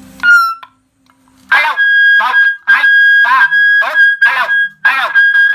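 12V six-mode electronic police siren: a short falling chirp, then after a brief pause a steady high tone with rapid sweeping pulses laid over it, about two a second, cutting off near the end.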